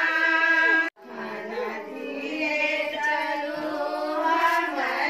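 Women singing together in long held notes. The singing breaks off suddenly for a moment about a second in, at a cut, and resumes a little quieter.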